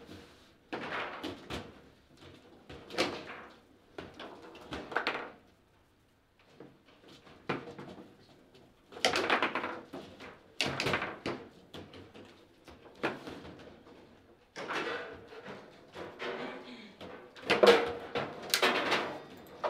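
Table football being played: bursts of sharp knocks and rattles from the ball striking the plastic players and table, with the rods being worked between them. The loudest flurry comes near the end.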